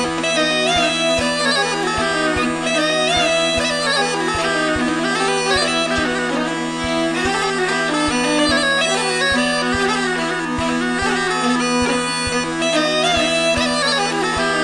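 Bagpipe music: a steady drone under a moving chanter melody, with an evenly spaced low beat underneath.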